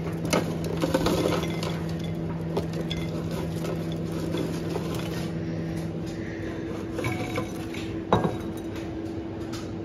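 Air-fried potato wedges tumbling out of an air fryer basket into ceramic bowls, with small clinks and clatters of the wedges and basket against the dishes. There is one sharper knock about eight seconds in, and a steady low hum underneath.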